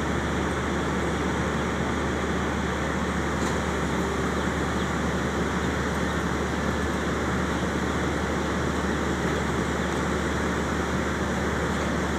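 Heavy construction machinery's diesel engine running steadily, a constant low drone that holds level throughout.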